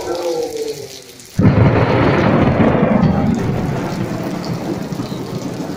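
A sudden loud thunderclap about a second and a half in, rumbling on and slowly fading, over heavy rain.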